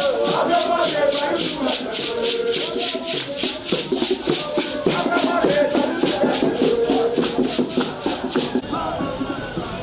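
Group singing to a shaken rattle that keeps a steady beat of about four strokes a second; the rattle stops near the end while the voices carry on.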